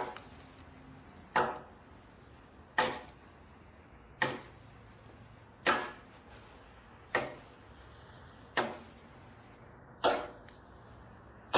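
Japanese hewing axe (masakari) chopping down the side of a round pine log to shave it flat. It strikes at a steady pace of about one blow every second and a half, and each blow is a sharp knock that dies away quickly.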